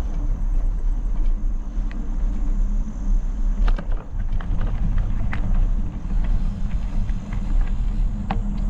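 Mountain bike riding along a dirt trail: a steady low rumble of wind on the microphone and tyres rolling on packed dirt, with scattered light clicks and rattles from the bike.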